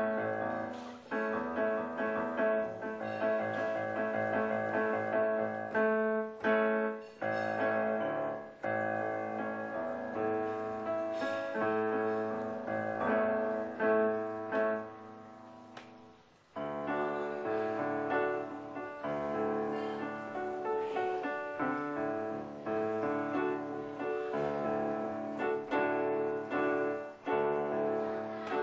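Korg SP-170 digital piano being played, chords with a melody over them. About sixteen seconds in the notes die away almost to nothing, then the playing starts again with a sudden loud chord.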